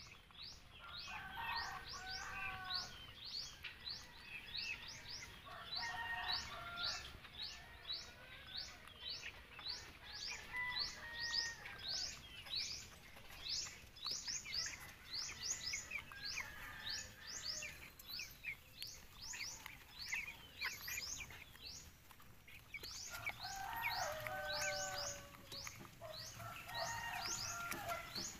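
Broiler chicks peeping: a steady run of short, high, falling cheeps, two or three a second, with lower warbling calls coming and going every few seconds.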